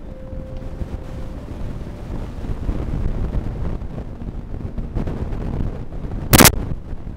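Steady low rumbling room noise, like air moving over the microphone, with one short, sharp bang about six seconds in that is the loudest sound.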